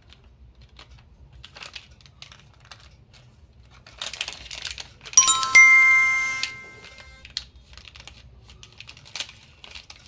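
Candy wrappers crinkling and crackling as candies are unwrapped, in short scattered rustles. About five seconds in a bright bell-like chime rings out, the loudest sound, and fades over about two seconds.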